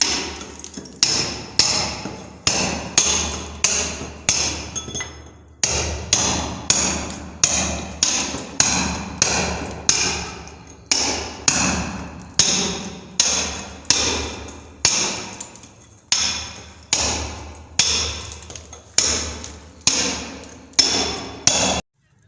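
A hammer striking repeatedly in a steady rhythm, roughly one blow every two-thirds of a second, each with a ringing decay. There is a short break about five and a half seconds in, and the blows cut off abruptly near the end.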